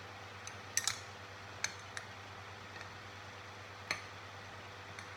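A plastic spoon hung on a wire knocking against a table: a few light, sharp clacks at uneven intervals, one double knock about a second in and a last one near four seconds.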